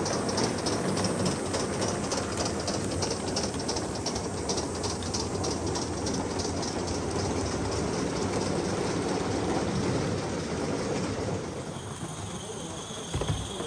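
A live-steam model steam locomotive and its train running along the track, with a rapid, even beat that fades away after about seven seconds. A steady high tone comes in near the end.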